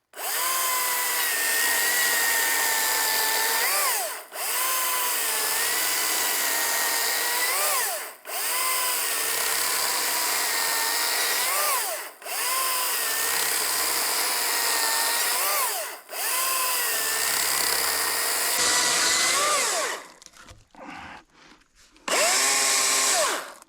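Echo DCS-2500T battery top-handle chainsaw cutting repeatedly through a log: a steady electric motor whine in runs of about four seconds, rising in pitch as each cut breaks through, with brief pauses between them, then scattered short bursts and one last short run near the end.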